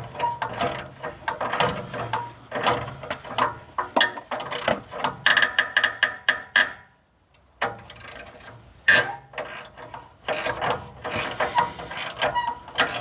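Ratchet wrench clicking in quick strokes as a rusted exhaust nut is worked back and forth on its stud, with a brief pause about seven seconds in.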